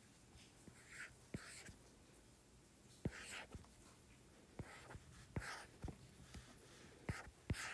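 Faint taps and short scratchy strokes of a stylus on an iPad's glass screen, about a dozen in a loose, uneven series, as cloud shapes are dabbed in with a brush.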